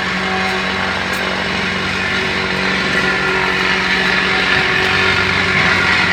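An engine running steadily at a constant speed: a low, even drone, typical of road-works machinery.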